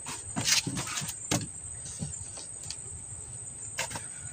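A few sharp knocks and scrapes of a caught fish being handled in a small boat, over the steady high-pitched drone of night insects.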